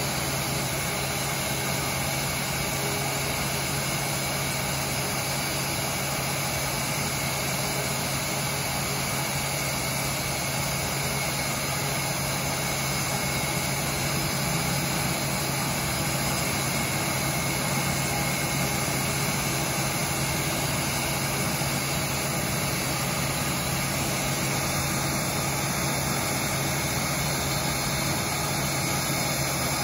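IAE V2500 turbofan of an Airbus A320 idling steadily on the ground with its cowlings open: a constant rushing hum with a steady whine over it. This is the leak-check ground run of a freshly installed replacement engine.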